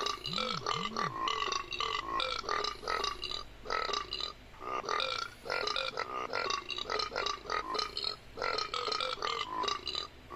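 A person burping in a rapid string of short burps, several a second, with brief pauses between runs.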